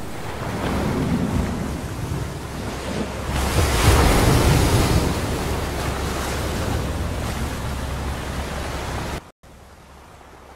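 Ocean waves and surf washing, a steady rushing noise that swells about four seconds in, then drops suddenly to a faint hiss near the end.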